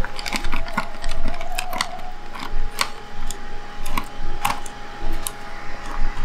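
Small tools and tiny metal screws clicking and ticking against the Sony A7R camera body as it is taken apart with a micro screwdriver: irregular sharp clicks, sometimes several a second.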